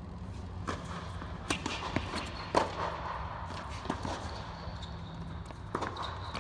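Tennis rally on a hard court: a series of sharp pops from racket strikes and ball bounces, the loudest about two and a half seconds in, over a steady low hum inside an indoor tennis dome.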